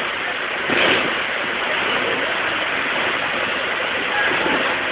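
Water pouring through open dam gates, a steady, even rush of falling water.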